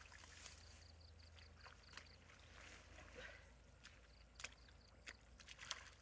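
Hands groping and splashing in shallow muddy water: faint sloshing with a few sharp little splashes.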